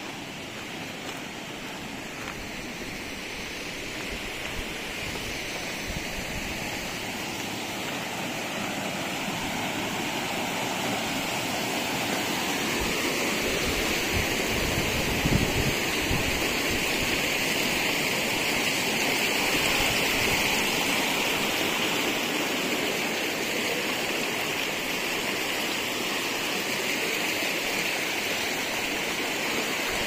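Shallow mountain stream rushing over stones: a steady water hiss that grows louder through the first two-thirds, with a few low bumps around the middle.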